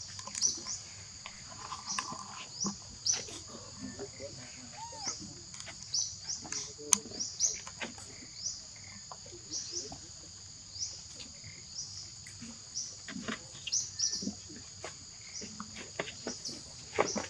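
A steady, high-pitched drone of insects in forest undergrowth, with many short high chirps repeating every second or so and scattered small clicks and rustles.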